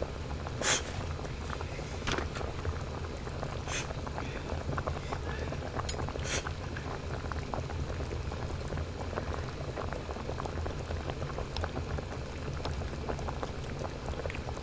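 A pot of hot-pot broth simmering on a burner, bubbling steadily over a low hum. A few short sharp noises stand out in the first six or seven seconds.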